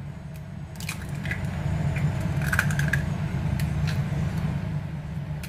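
A raw egg cracked with a knife blade and its shell pulled apart, the egg sliding out into a bowl: a few light clicks and a wet squish, over a steady low hum.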